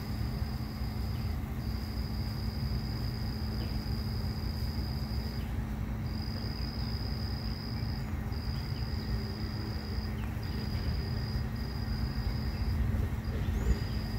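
An insect's high-pitched trill, one steady note broken by brief pauses every one to three seconds, over a low steady rumble of outdoor background noise.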